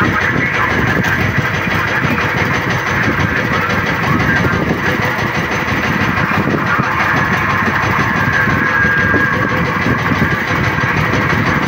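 Outrigger fishing boat's engine running steadily at low revs.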